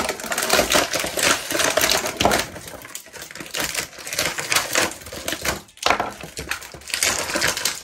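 Toy packaging being handled and opened close to the microphone: rapid, dense crackling and clicking of plastic and cardboard, with two short pauses.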